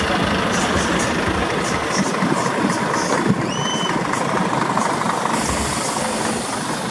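Heavy Scania truck's diesel engine running steadily as the truck rolls slowly past. About halfway through there is a brief high-pitched beep and a sharp click.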